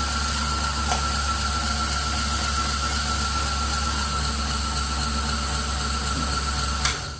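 2x72 knife-grinder belt sander running steadily with a low hum and a high steady whine, switched off near the end with a click, after which the noise drops away quickly.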